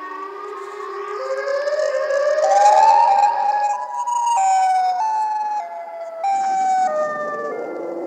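A siren sound: a pitched wail rising over the first three seconds, then falling in steps of about half a second each.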